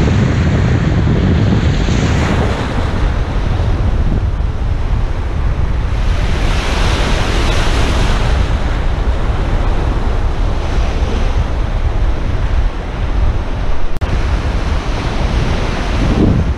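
Gulf surf breaking and washing on the beach in heavy wind, with wind buffeting the microphone as a constant low rumble. The hiss of the surf swells louder for a couple of seconds about six seconds in.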